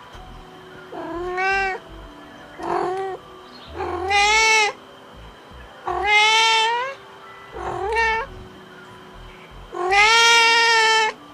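Domestic cat meowing, six separate meows, the last one the longest.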